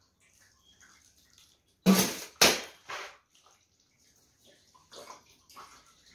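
Two loud splashes of water about half a second apart, followed by a few softer splashes and trickles, as warm water is splashed and poured over a baby during a bath.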